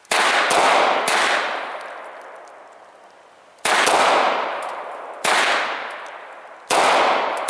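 Five pistol shots at uneven spacing, about one to two and a half seconds apart, each followed by a long echoing decay.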